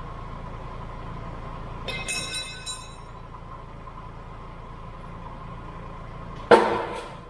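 Kubota U10 mini excavator's diesel engine idling steadily. A metal clank with a ringing tail about two seconds in and a loud clunk near the end come from the arm as it moves, its stick and quick coupler loose from worn joints and broken bolts.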